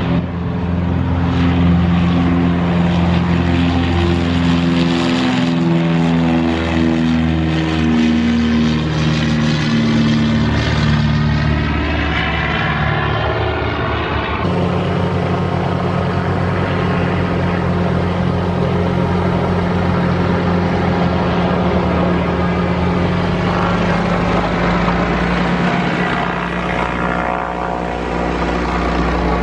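Piper PA-23-250 Aztec's twin piston engines at takeoff power as it rolls and climbs away, the pitch falling as it passes. About halfway through, a Piper Seneca's twin engines take over, running steadily.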